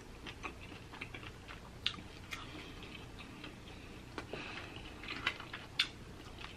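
Close-miked chewing of a mouthful of broiled lobster tail meat: soft, scattered wet mouth clicks and smacks, with a few sharper clicks about two seconds in and again near the end.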